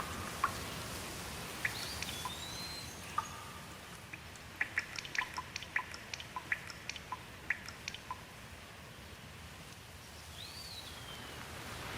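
Steady rainfall with water drops dripping, the drips coming thick and fast in the middle few seconds. A bird gives a short whistled call twice, once early and once near the end.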